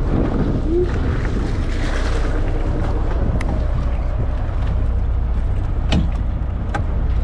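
Steady wind rumble on the microphone, with water splashing as a hooked California halibut thrashes and is netted beside the boat. A few sharp clicks come in the second half.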